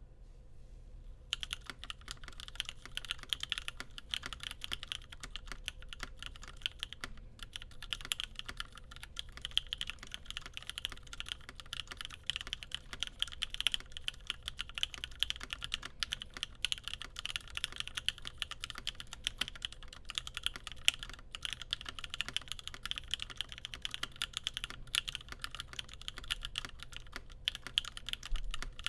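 Continuous fast typing on a Cannon Keys Satisfaction75 custom mechanical keyboard: OP Black switches lubed with 205g0, a full carbon fiber plate and GMK Botanical keycaps. A dense run of key strokes starts about a second in.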